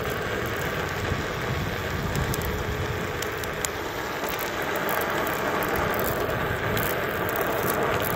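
Onewheel+ board rolling over pavement: a steady rolling hiss from the fat tyre and hub motor, with a faint steady tone and small scattered clicks. The hub motor is running on freshly fitted ceramic bearings, which the rider finds much quieter.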